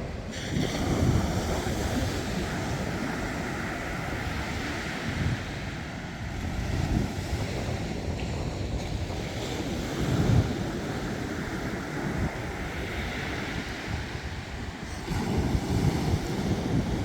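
Waves breaking on the shore with wind buffeting the microphone in gusts.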